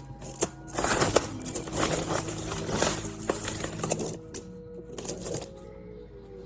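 Plastic magnetic building blocks clattering and clicking against each other as a hand rummages through a pile of them. The clatter is busiest from about one to four seconds in, then thins to a few separate clicks.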